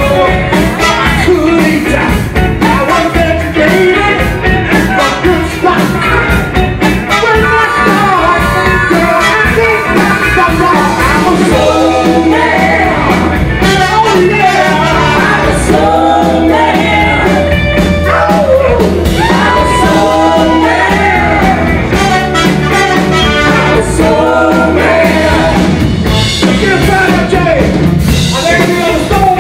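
Live band playing a blues and rock-and-roll number, with male lead vocals and backing singers over drums and bass.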